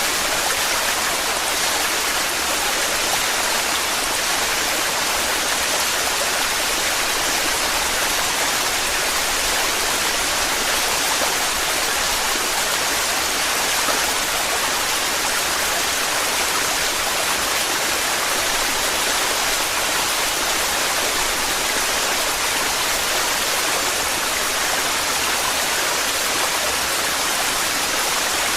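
Waterfall in heavy flow, a steady, unbroken rush of falling water.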